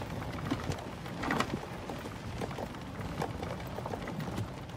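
Crackling outdoor noise with scattered, irregular small ticks over a low rumble, from walking with a handheld camera: footsteps and handling noise.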